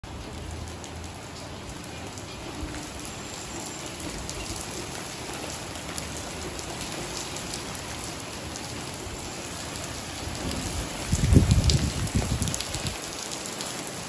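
Steady rain pattering on wet concrete and puddles. About eleven seconds in, a louder low rumble lasts a second or so.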